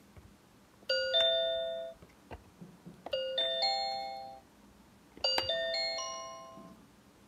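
Fisher-Price Smart Stages toy train's number buttons playing electronic bell chimes, one ring for each number pressed. There are three runs of rings, each stepping upward in pitch and fading out, with more rings in each run than in the one before.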